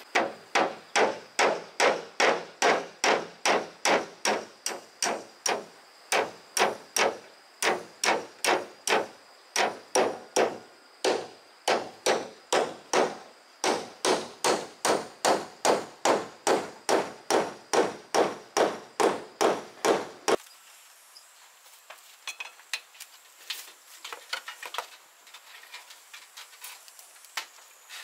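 Hammer blows struck at a steady pace of about two a second, with a few short pauses, stopping abruptly about twenty seconds in; after that only faint scattered taps.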